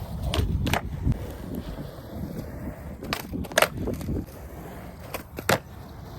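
Skateboard rolling on pavement, a steady low rumble of the wheels, broken by three pairs of sharp clacks from the board.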